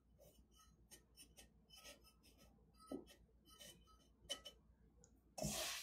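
Faint, scattered light ticks and taps of fingertips tamping moist perlite down onto pebbles in a glass jar, with a short louder hiss near the end.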